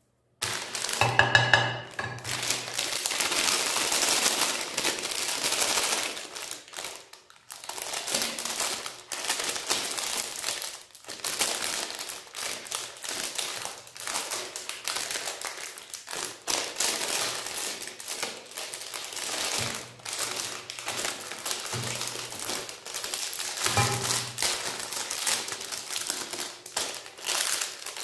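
Magnum ice cream foil wrappers crinkling and rustling as they are handled and torn open, a dense irregular crackle that goes on throughout. A short pitched sound comes about a second in and again near the end.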